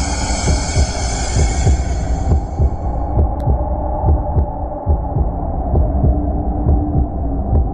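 Horror soundtrack effect: a low throbbing pulse like a heartbeat over a steady hum. The higher sounds die away about three seconds in, leaving the low throb.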